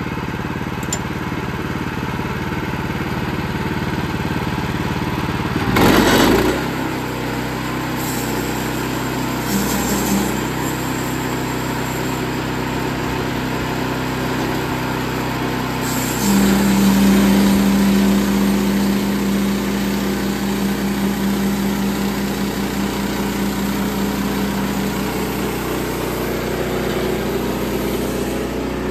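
Sawmill engine running steadily, with a short loud surge about six seconds in and a louder hum that lasts a few seconds from about sixteen seconds in.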